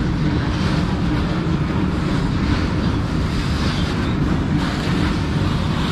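Steady wind rushing over the microphone of a motorcycle riding at road speed, with the bike running underneath and no pauses or changes.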